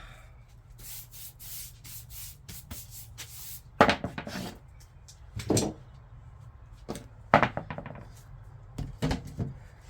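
Wooden workpieces being handled on a workbench: light rubbing and ticking, then four sharp wooden knocks as pieces are set down and shifted.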